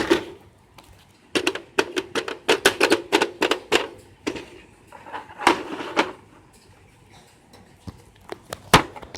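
Silicone pop-it fidget toy's bubbles being pressed in by fingers, popping in a quick run of clicks, then a few single pops, the loudest near the end.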